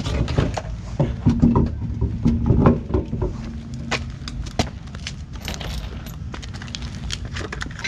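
Irregular metallic clinks and knocks of tools and wheel hardware being handled while wheels are fitted to a car, with a low steady hum underneath for the first few seconds.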